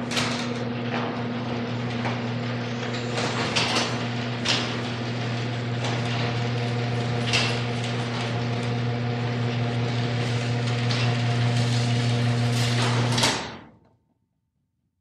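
Garage door moving under an electric opener: the motor runs with a steady hum while the door rattles along its track with scattered clicks and knocks. It stops suddenly about 13 seconds in.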